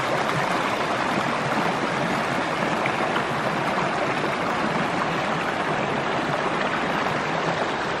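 Shallow, rocky stream water rushing over stones in a steady, even flow.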